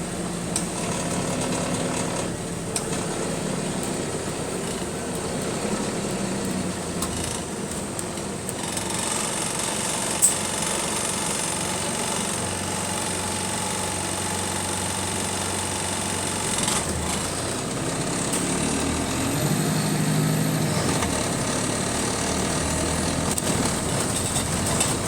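Bus engine and drivetrain running, heard from inside the bus, with scattered rattles and clicks. A steady whine comes in for several seconds midway.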